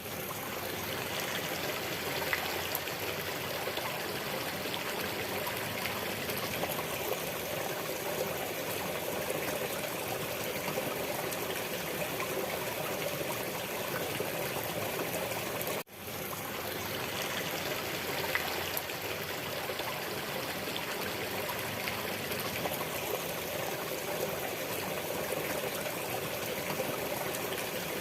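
A stream of water trickling and babbling steadily. It cuts out for a moment about sixteen seconds in and fades straight back, like a looped recording.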